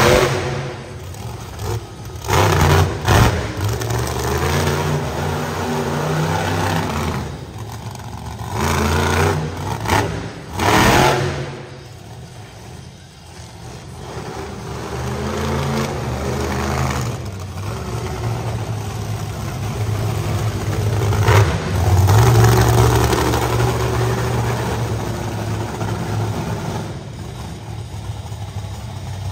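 Monster truck engine revving hard and backing off again and again, broken by several loud bangs.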